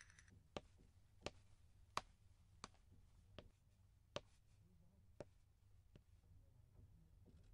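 Faint footsteps of shoes climbing stairs, a sharp step about every two-thirds of a second, stopping about five seconds in; otherwise near silence.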